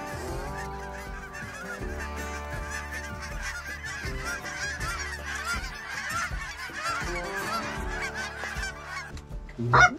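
A large flock of dark geese honking continuously overhead as the roost lifts, dozens of overlapping calls at once.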